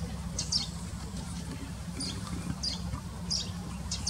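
Marsh warbler singing: short, high, scratchy notes in quick separate phrases, over a steady low hum.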